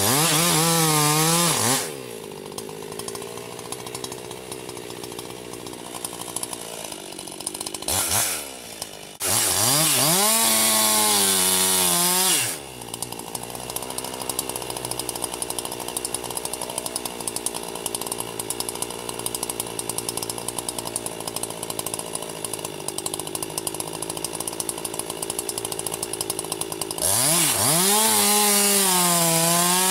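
Chainsaw cutting into a tree: loud bursts of the saw at full throttle with its pitch dipping and recovering as the chain bogs under load, three main bursts, with the saw running much quieter in between.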